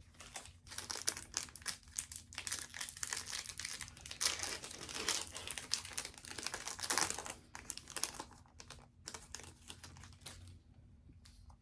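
Foil trading-card pack wrapper crinkling as it is handled and torn open, a dense crackle that dies down near the end.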